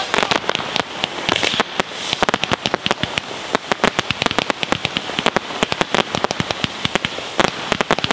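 Bolognese-style fireworks battery going off: a fast, irregular string of sharp cracks and bangs, several a second, with one louder bang near the end.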